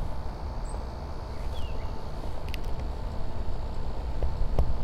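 Metal rod tamping dextrose–potassium nitrate–sulfur propellant down into a PVC-pipe rocket motor, with a couple of light taps near the end. Under it, a steady low rumble and a few faint high chirps.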